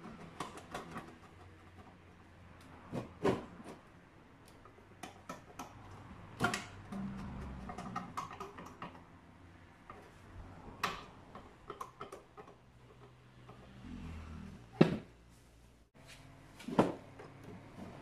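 Scattered clicks and knocks as a small sheet-metal box and a screwdriver are handled while a lock is fitted to the box's front panel. There are about five sharper knocks, the loudest about 15 seconds in, over faint handling noise.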